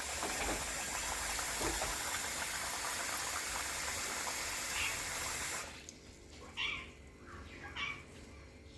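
Water running and splashing as rice is washed in a vessel, stopping about five and a half seconds in. After that, a cat meows a few times.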